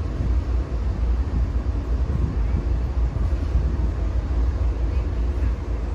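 Diesel freight locomotives rumbling steadily as a freight train approaches.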